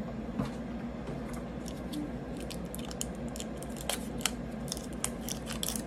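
Scissors snipping and plastic shrink-wrap crinkling as the seal on a plastic candy package is cut open: a scattered run of small sharp clicks that comes thicker in the second half.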